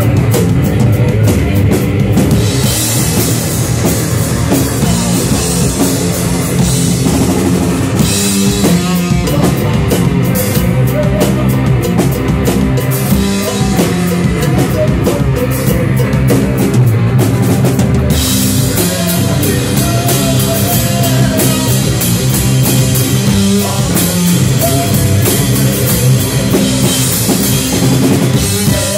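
Live rock band playing loud with electric guitar, bass guitar and drum kit. Cymbals wash over most of it and thin out for several seconds in the middle.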